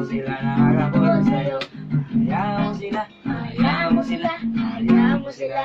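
Small acoustic guitar strummed in chords while boys sing along. The strumming pauses briefly near the end.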